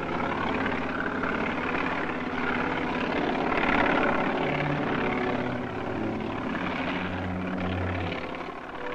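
Helicopter in flight, its rotor and engine giving a steady noise that swells about four seconds in and eases slightly near the end.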